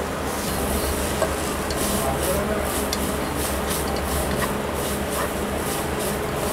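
A spatula scraping and stirring grated coconut as it fries in a pan, in many quick irregular strokes, over the steady hum of an induction cooktop.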